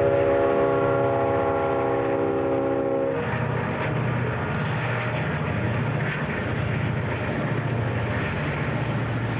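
Diesel freight train locomotive horn sounding one steady multi-note chord that cuts off about three seconds in. After it come the low rumble of the diesel engines and the noise of the approaching train.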